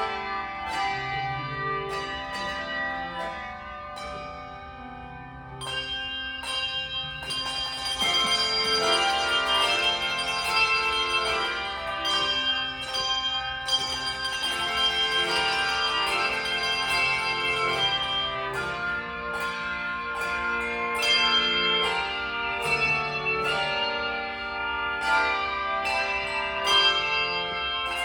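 Handbell ensemble playing a piece: many tuned bells struck in chords, each ringing on and overlapping the next. The playing thins out and softens about five seconds in, then grows fuller and louder from about eight seconds on.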